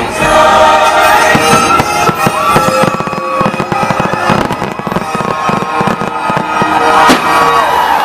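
Fireworks bursting and crackling, many bangs in quick succession, over loud music with held notes.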